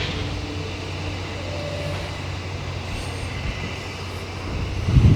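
Steady low rumble of a train running on the rails, growing louder with heavier low rumbling near the end.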